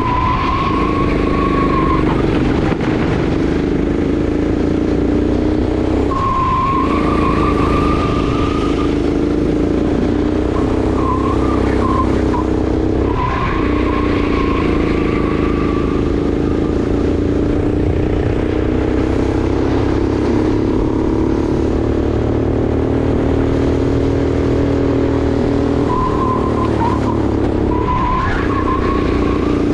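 Sodi RX8 rental kart's 390 cc single-cylinder four-stroke engine running hard under load, its note dipping briefly four times as the driver lifts for corners. A wavering tyre squeal comes and goes through the corners.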